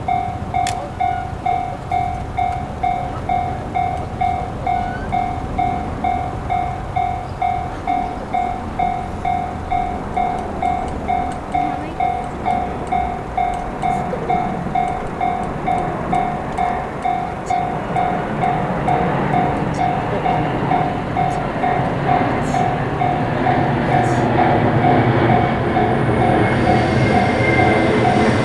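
Japanese level-crossing warning bell ringing steadily, about two dings a second, while a freight train approaches: its rumble grows steadily louder from about halfway and swells near the end, with a high whine and a gliding wheel squeal.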